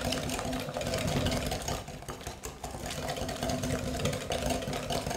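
Wire whisk beating eggs and demerara sugar by hand in a glass bowl, the wires clicking against the glass in a fast, steady rhythm as the mixture is whipped to gain volume.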